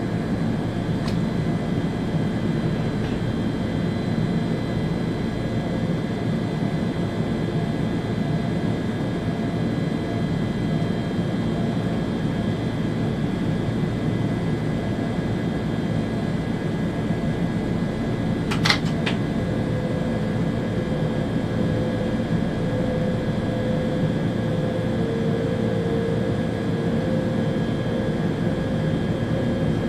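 ÖBB Railjet train running at speed, heard from inside the driver's cab: a steady rumble and rush with faint electrical tones. There is a single sharp click about two-thirds of the way through, and a faint tone comes in after that and rises slightly.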